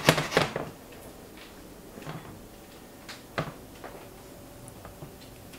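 Kitchen clatter of a spatula and a stainless steel frying pan knocking and scraping on the stove: a quick cluster of knocks at the start, then a few light single taps.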